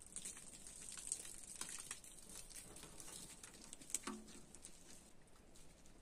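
Faint crunching and crackling of footsteps on dry gravelly ground and twigs, busiest in the first few seconds, with one sharp knock about four seconds in.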